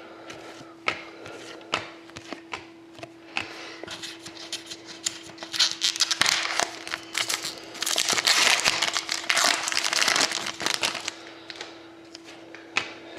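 Foil trading-card pack wrapper crinkling as it is torn open and handled, with cards clicking as they are shuffled through. The crinkling is thickest from about five to eleven seconds in, with scattered sharp clicks before and after.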